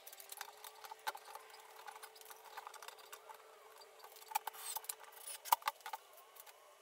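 Handling noise from flat-pack cabinet parts and cardboard: scattered clicks, rubs and light knocks at no steady rhythm, with a few sharper clicks in the second half.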